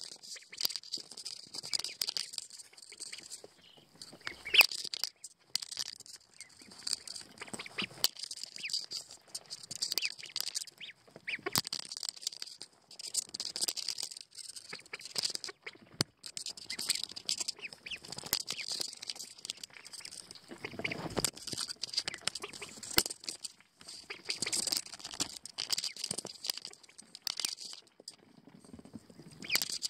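Pekin ducklings peeping over and over in clusters of high calls, with scratchy rustling and sharp little taps close to the microphone as they move about in wood shavings. The loudest tap is about four and a half seconds in.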